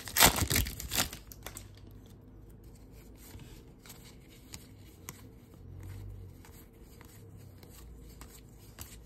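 A baseball card pack's wrapper is torn open with a loud crinkling rip in the first second. After that come soft, scattered flicks as the trading cards are thumbed through one at a time.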